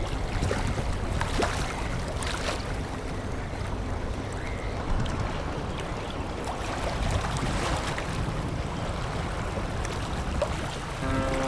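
Sea water sloshing and wind on the microphone over a low boat-engine rumble, with scattered small splashes. Near the end a steady, evenly pitched engine drone starts.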